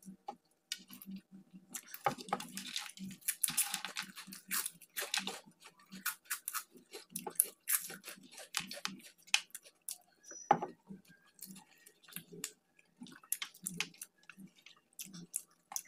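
Close-up chewing and mouth sounds of people eating: many short wet clicks and smacks, with a denser, noisier stretch about two to five seconds in.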